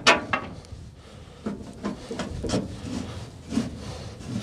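A series of knocks and scrapes, loudest at the very start, from handling the folded ARPAL AM-120TR wood chipper while it is latched and bolted for transport.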